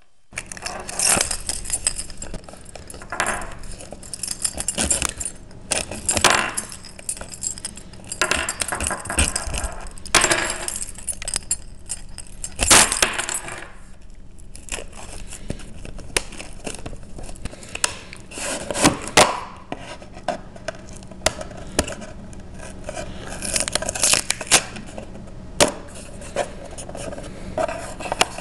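Hands handling and opening a cardboard trading-card box: irregular bursts of rustling, scraping and crinkling.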